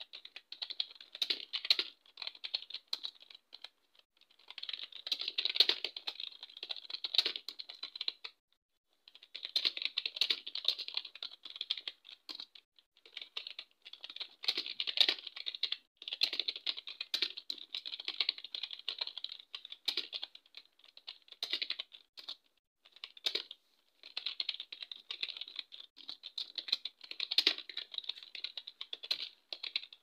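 Rapid touch-typing on a computer keyboard, a fast run of key clicks at about 45 words a minute, broken by brief pauses every few seconds.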